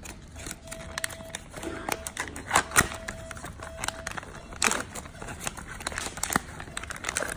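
Foil sterile peel pouch of a Ventralex hernia mesh being pulled open and handled by gloved hands: a run of crinkling and crackling, with louder crackles about two and a half and four and a half seconds in. A faint high tone sounds on and off in the first half.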